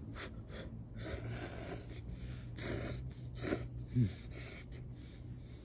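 A man slurping instant ramen noodles: several short, noisy slurps, then a brief low grunt about four seconds in.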